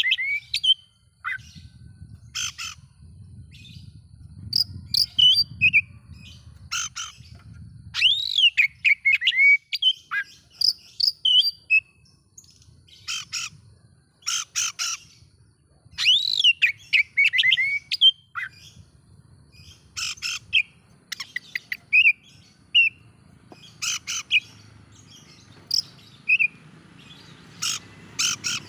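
Oriental magpie-robin (kacer) singing a varied song. Phrases of swooping whistled notes alternate with short, harsh, scratchy notes, with brief pauses between phrases.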